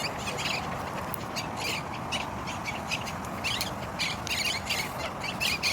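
A flock of green parakeets squawking, many short harsh calls overlapping in a busy, continuous chatter.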